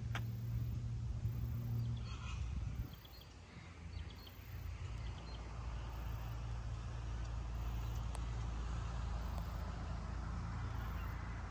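Outdoor ambience with a steady low rumble that dips briefly about three seconds in, and a few faint bird chirps.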